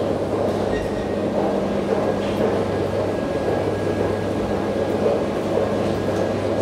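Steady low hum and rumble of metro station background noise.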